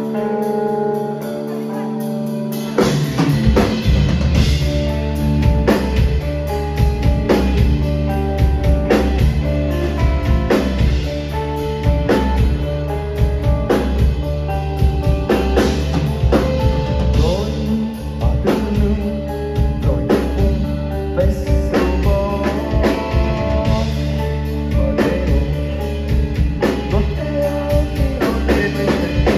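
Rock band playing live. A held chord rings for about the first three seconds, then the drum kit and bass come in with a steady driving beat.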